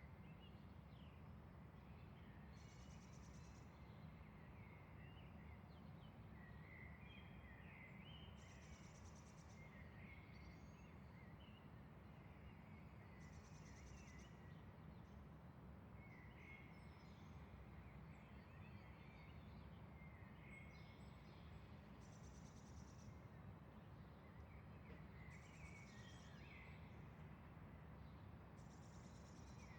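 Faint early-morning bird ambience: scattered birds chirping and calling, with a short, high, buzzy trill repeating every three to five seconds, over a steady low rumble.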